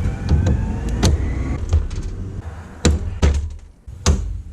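A series of sharp plastic clicks and knocks, about seven spread irregularly, from hands and tools working trim clips and fasteners on a car's front bumper.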